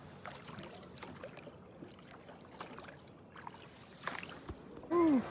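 Water sloshing and paddle splashes around a small paddled boat on the river. A short call rises and falls in pitch near the end, and it is the loudest sound.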